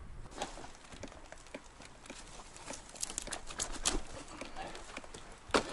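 Irregular crackling, rustling and clicking as hands handle a dead grouse and its feathers with a knife close by, with a flurry of clicks about three to four seconds in and one sharp knock near the end.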